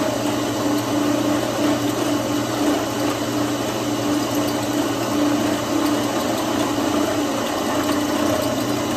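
Benchtop drill press running steadily, its bit cutting through a cookware handle to drill out a stuck rivet, a hollow-shank aluminium rivet plated to look like brass. A steady hum with a pulsing whine over it.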